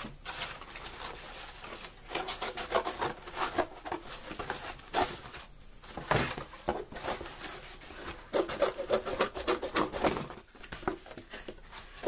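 Cardboard being handled at a work surface: a busy run of quick scrapes, rubs and taps, densest in the second half.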